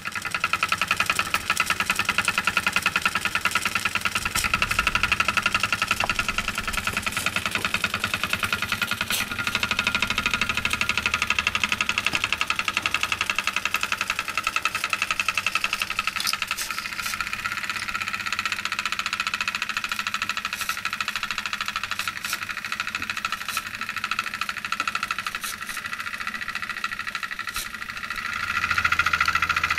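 REGNER Micro-line model steam engine, a small brass engine with flywheel fed by a vertical boiler, running fast with a rapid, even beat of steam exhaust. It gets louder near the end.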